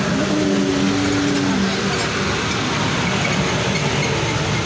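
Road traffic noise: a steady rush of engine and tyre noise from passing motor vehicles, with a short engine hum in the first second and a half.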